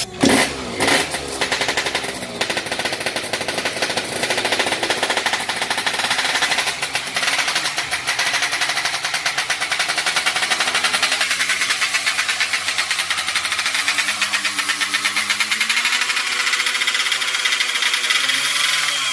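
Yamaha RX-King's two-stroke single-cylinder engine running on a freshly rebuilt top end, revved so its pitch rises and falls. Two sharp knocks come in the first second.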